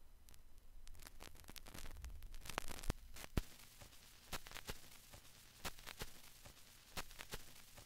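Faint vinyl-style crackle: irregular sharp clicks over a light hiss, with no melody. The clicks come thicker and louder about two to three seconds in.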